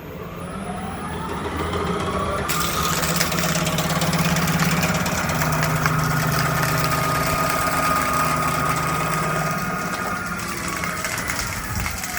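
Electric motor of a food-processing cooking vessel spinning up over about two seconds to a steady whine, with a rushing hiss joining in shortly after, then winding down in pitch near the end.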